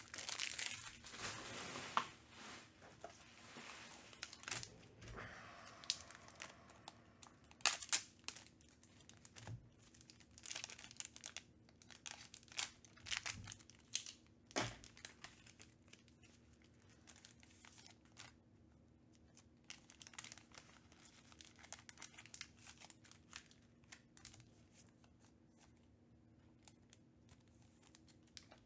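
Thin plastic card sleeves and wrapping crinkling and crackling while being handled, with sharp ticks. The sound is dense through the first half and thins to scattered crackles later.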